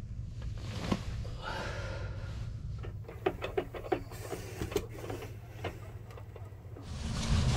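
Bedding rustling, then a quick run of clicks and rattles as a capsule-hotel pod's pull-down privacy blind is pushed up, over a steady low hum.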